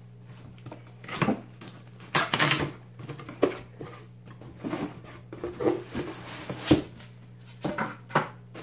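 Cardboard shipping boxes and a styrofoam box inside them being handled and opened, giving an uneven string of knocks, scrapes and rustles, with a steady low hum underneath.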